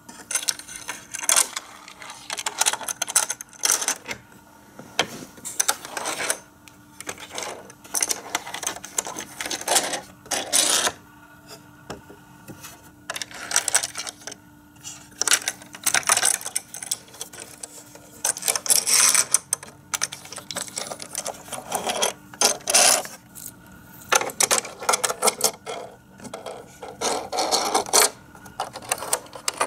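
Tiny Micro Machines toy cars rolled and pushed by hand across a hard plastic playset, giving a rattle of small wheels and plastic clicks in repeated short bursts with pauses between.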